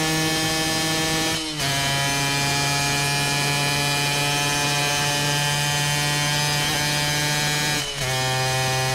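Motorcycle engine buzzing at steady revs under way, with two upshifts: about one and a half seconds in and again near the end, the sound dips for a moment and comes back at a slightly lower pitch.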